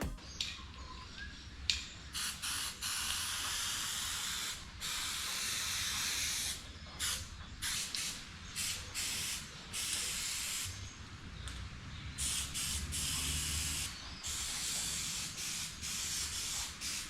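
Aerosol spray can being sprayed in a series of hissing bursts, some brief and some lasting a second or two, with short pauses between them.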